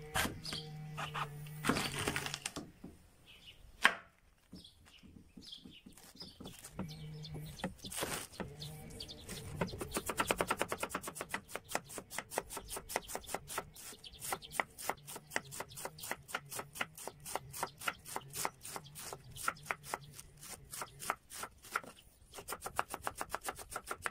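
Kitchen knife cutting a head of fresh early cabbage on a wooden cutting board. A few slower cuts and knocks come first, with one sharp knock about four seconds in. From about ten seconds in it turns to rapid, even shredding strokes, several a second, each a crisp crunch with the blade tapping the board.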